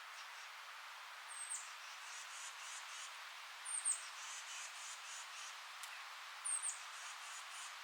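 Steady rustle of wind through forest leaves, with a small bird giving three short, high, down-slurred chirps a couple of seconds apart, each followed by a quick run of faint ticking notes.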